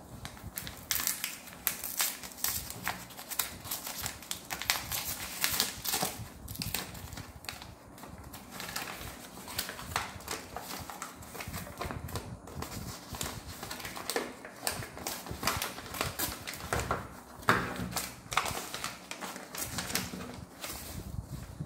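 Sheets of A4 copy paper handled by hand: an irregular run of crisp paper flicks and rustles, several a second.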